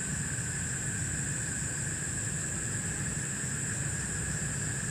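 A steady chorus of night insects, one high-pitched and one lower, over a low steady rumble.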